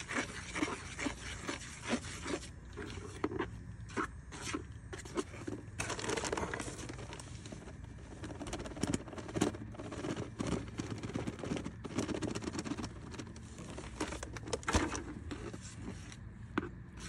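A drywall knife scraping and stirring quick-set 20-minute joint compound with water in a metal mud pan, with many short sharp scrapes and taps against the pan. Partway through, powder is poured in from the paper bag, which crinkles.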